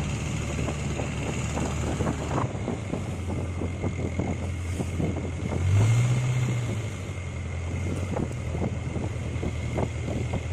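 Longtail boat engine running steadily while cruising, with water splashing and wind buffeting the microphone. The engine note rises and swells briefly about six seconds in.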